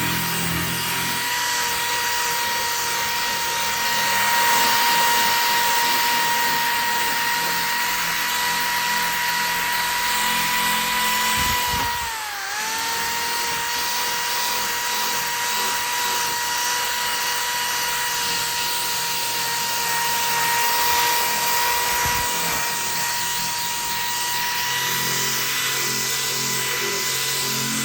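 Corded power drill running steadily with a high whine. Its pitch dips briefly about twelve seconds in, as if loaded, then comes back up.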